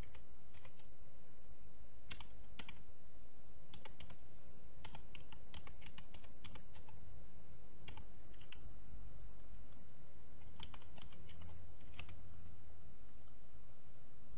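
Typing on a computer keyboard, keystrokes coming in irregular short runs as an email address and then a password are entered, over a steady low hum.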